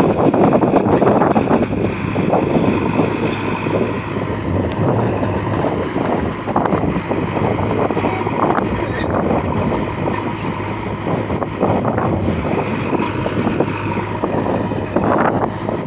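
JCB backhoe loader's diesel engine running steadily under work, with wind buffeting the microphone.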